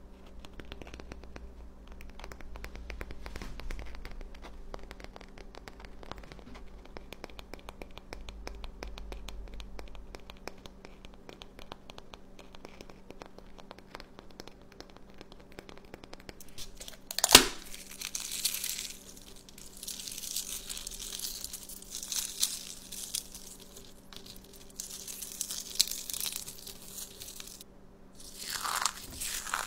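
Faint clicking and scratching of fingers handling an eggshell, then a single sharp crack a little past halfway as the shell breaks, followed by repeated bursts of crunching and crinkling as the shell is crushed into fragments in the hand.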